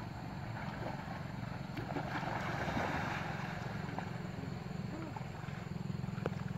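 Water splashing and sloshing as people wade and swim in a shallow river, strongest in the middle, over a steady low drone with a rapid flutter.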